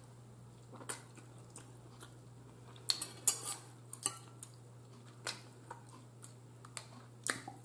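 A fork clicking and scraping against a plate as pasta is twirled and lifted, in a dozen or so short scattered clicks, the loudest about three seconds in, over a faint steady low hum.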